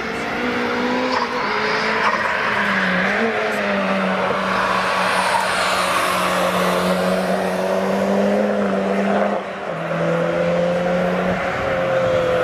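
Garrett-turbocharged Honda 1.6 L VTEC B16A1 four-cylinder in a classic Mini, running under power on track with a mostly steady engine note. About nine and a half seconds in the sound briefly drops, then carries on at a slightly lower pitch.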